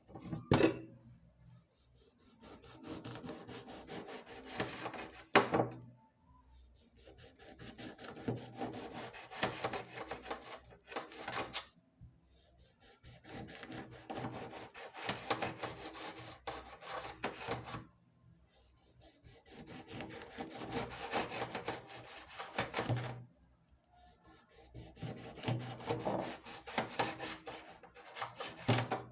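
Food being grated on a hand grater: five bursts of rapid scraping strokes, each a few seconds long, with short pauses between them. A few sharp knocks come near the start and again around five and eleven seconds in.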